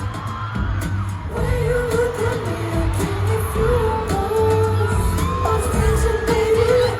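Live K-pop concert: singers performing a pop song over a heavy bass and drum backing track.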